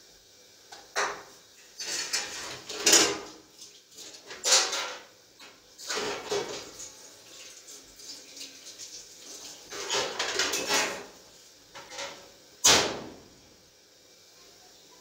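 Dishes and pans clinking and scraping in a stainless-steel kitchen sink as they are washed by hand, in irregular bursts, with one sharp clank near the end.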